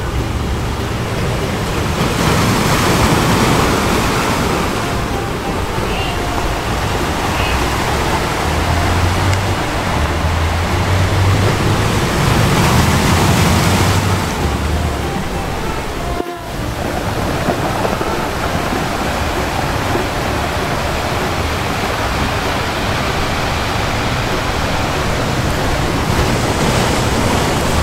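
Steady rushing of open sea waves with wind, swelling a little now and then, with a brief drop about sixteen seconds in.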